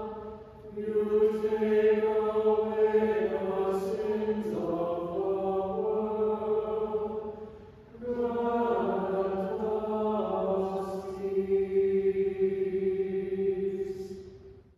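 Church choir singing a slow, chant-like anthem in held chords, in two long phrases with a breath about eight seconds in. It is sung as the fraction anthem at the breaking of the bread.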